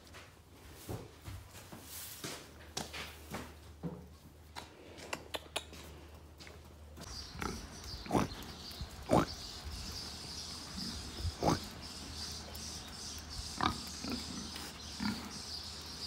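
Domestic pigs grunting: five or six short grunts a second or two apart in the second half, over a steady high hiss. Before that, only faint scattered knocks and rustling.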